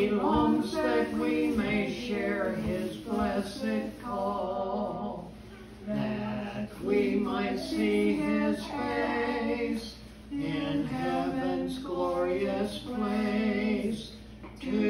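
A woman and a man singing a gospel hymn together from a songbook, in long held phrases with short breaks for breath between them.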